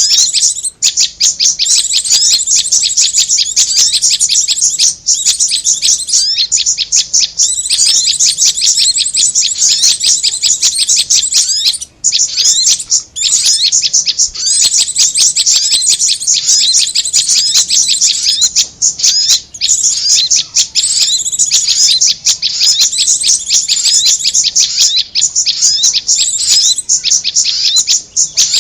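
Bird-lure recording of korlap and prenjak (prinia) calls: rapid, continuous high chirping and trilling, broken by a few brief pauses.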